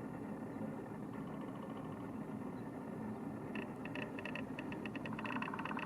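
Downy woodpeckers drumming: a faint, brief rapid roll about a second in, and a louder rapid roll near the end, one bird answering another. A steady traffic hum lies under it.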